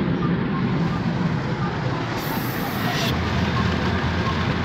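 Steady road and engine noise inside a car's cabin at highway speed. A brief hiss is heard about two seconds in, and the low hum shifts slightly about a second later.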